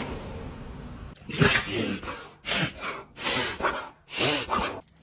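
A dog sneezing four times in quick succession, each sneeze a short, sharp burst of breath about a second after the last, starting about a second in.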